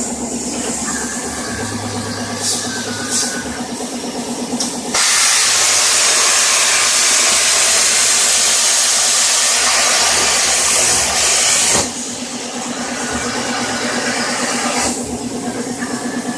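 Home-built CNC plasma cutting machine running. The gantry's stepper motors give a steady pulsing hum with low tones that shift as the axes move, and there are two brief hisses early on. About five seconds in, the torch starts a loud, even hiss that runs for about seven seconds and cuts off suddenly.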